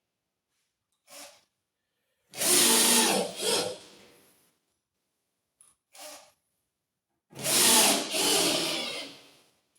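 Power drill with a 3/8-inch magnetic nut driver driving roofing screws into a metal-roof flange in two runs of about two seconds each, each preceded by a short blip. The screws are being run in but left loose, not fully tightened.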